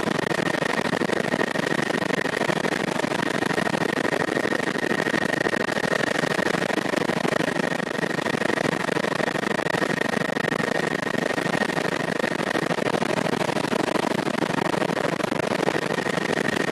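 Helicopter in flight, heard from on board: a steady rush of engine and rotor noise with a high whine held at one pitch.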